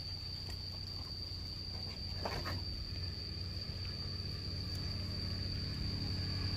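Steady, unbroken high-pitched insect drone, with a low hum beneath it and a couple of faint ticks about two seconds in.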